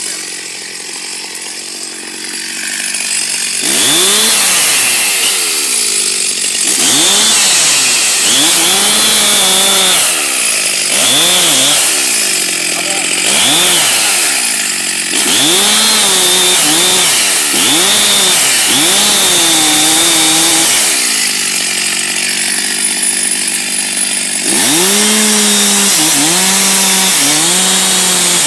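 Stihl MS 361 two-stroke chainsaw idling, then revved up and cutting into a tree trunk, its engine pitch rising and falling again and again as the throttle is worked and the chain bites. Near the end it drops back to idle for a few seconds, then runs steadily at full speed through the cut.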